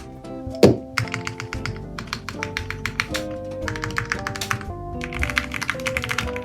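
Rapid, uneven keystrokes on a QK60 mechanical keyboard with lubed Cherry MX Black linear switches and PBT keycaps, starting about a second in and growing denser near the end. Background music with piano-like notes plays throughout.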